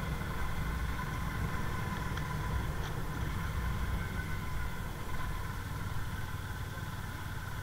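A vehicle's engine running steadily with road noise, heard from on board while it drives along a street.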